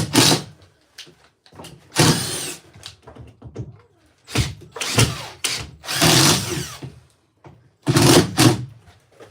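Construction tool work in short bursts: about five harsh strokes, each half a second to a second long, a second or two apart.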